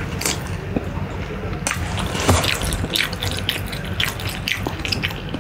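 Close-miked wet eating sounds: instant fried noodles slurped into the mouth, then chewed, with many small wet clicks and smacks.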